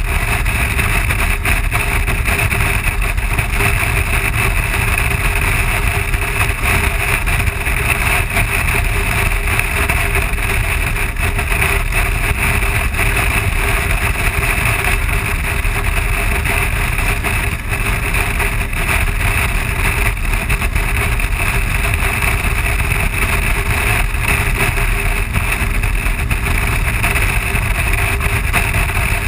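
Steady wind rush and engine drone of a BMW R1200 boxer-twin motorcycle cruising at road speed, with wind buffeting the bike-mounted microphone.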